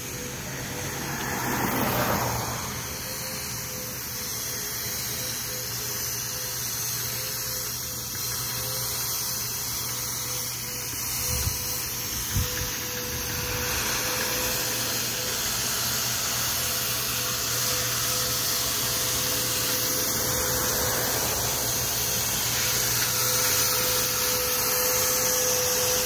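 Steady whirring noise of a bicycle ride on concrete sidewalk, with a thin steady whine and a low hum throughout, and a couple of short knocks a little before the middle.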